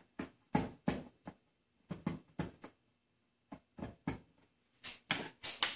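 Screwdriver tip scratching into a piano case's wood in a string of short, irregular strokes, scribing a match mark. The last few strokes, near the end, are louder.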